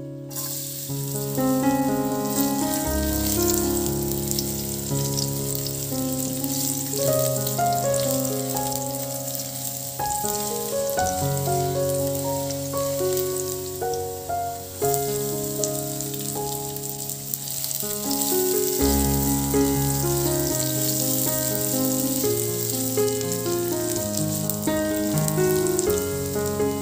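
Minced garlic, and later sliced onion, sizzling as they fry in hot cooking oil in a nonstick frying pan. The sizzle starts suddenly as the garlic goes in. Background music plays throughout.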